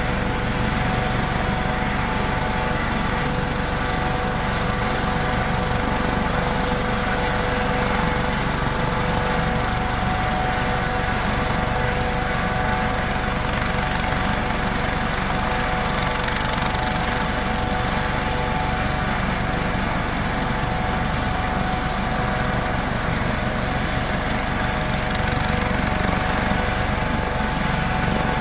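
Helicopter running steadily, its rotor noise held even with a constant high whine over it, as in a take-off sound effect.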